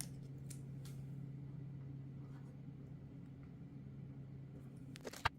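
Faint handling ticks as self-adhesive furniture slider pads are pressed onto the bottom of a plastic socket case, with one sharp click near the end, over a steady low hum.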